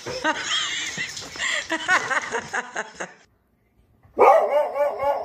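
A dog barking and yelping in quick, short, high calls. The sound cuts off about three seconds in, and after a second of silence a dog starts barking again in a rapid run.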